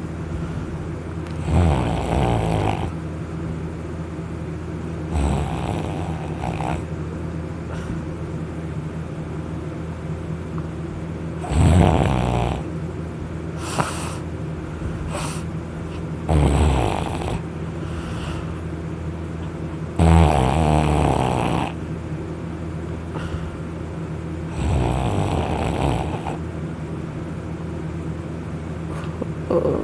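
A person snoring loudly in deep sleep after drinking alcohol. There are about seven harsh snores, roughly every four to five seconds, over a steady low hum.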